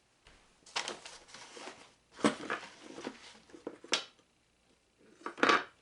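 Handling noises: rustling and scraping with a few sharp clicks and knocks, the loudest near the end, and a short quiet gap a little after the middle.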